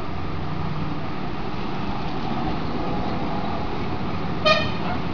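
Steady background traffic noise with a single short vehicle-horn toot near the end.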